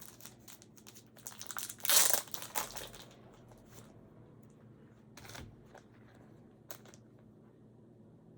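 Crinkling of a thin plastic penny sleeve as a trading card is handled and slid into it, loudest about two seconds in, then two faint taps.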